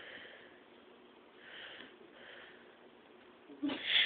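Soft sniffs or breaths: a few short, hissy puffs, with a louder one near the end.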